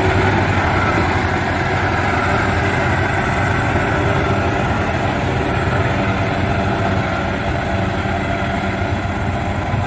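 Crawler rice combine harvester running as it drives across the paddy, its engine and threshing machinery making a continuous drone, with a thin steady high whine over it that fades near the end.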